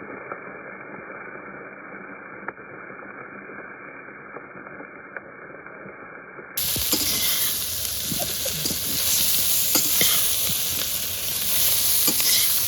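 Boiled cassava pieces frying in a pan of hot oil with onion and coconut: a steady sizzle with a spatula stirring and scraping, clicking against the pan. It is quieter and dull for the first six seconds or so, then louder and brighter.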